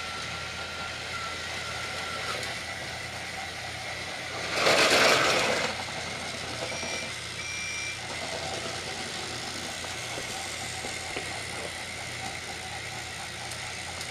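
Motorized TrackMaster toy trains running on plastic track, their small electric motors and gears whirring steadily. About five seconds in comes a loud hiss lasting about a second, and shortly after it two short high beeps.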